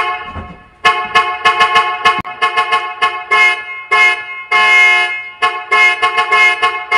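Test music played loud through D12 miniscoop subwoofer boxes and an SRX-clone mid-high speaker: a brassy, horn-like chord stabbed in rapid stuttering blasts.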